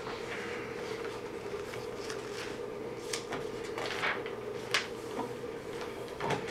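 Scattered rustles and light clicks of things being handled on a desk, probably papers, with one sharper click just before five seconds in, over a steady hum in a small room.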